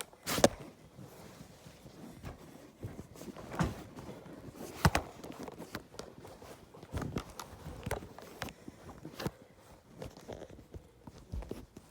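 Hands handling a toy's packaging: scattered clicks and taps with faint rustling, the sharpest about half a second in and about five seconds in.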